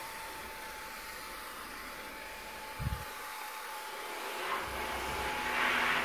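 Hand-pump pressure sprayer hissing steadily as it sprays cleaning solution onto an air conditioner's heat-exchanger fins, growing louder near the end, with a single low thump about three seconds in.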